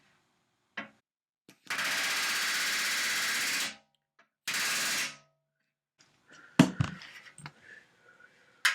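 Pneumatic rivet gun driving a solid aluminium rivet against a bucking bar. There is one steady burst of rapid hammering lasting about two seconds, then a short second burst, then a few sharp metallic clanks from the tools being handled.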